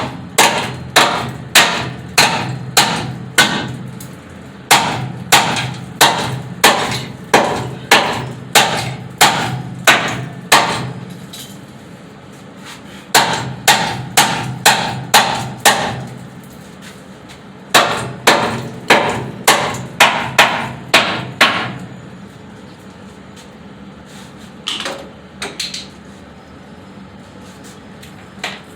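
Hammer blows struck in steady runs of about two a second, with short pauses between the runs and a few last blows near the end, over a faint steady hum.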